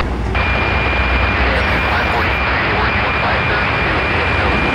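Bilevel passenger cars of a departing train rolling past with a steady low rumble. Over it a scanner radio hisses with a steady high tone; this switches on abruptly just after the start and runs on.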